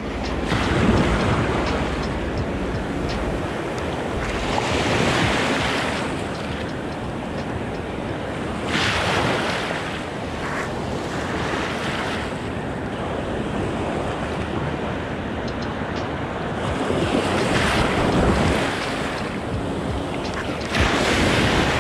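Shallow surf washing in around the legs of someone standing in the water, swelling in surges every few seconds, with wind buffeting the microphone.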